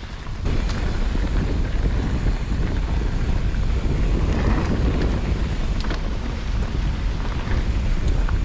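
Wind buffeting the microphone as a steady low rumble, with scattered light clicks and knocks from a mountain bike riding a rocky trail.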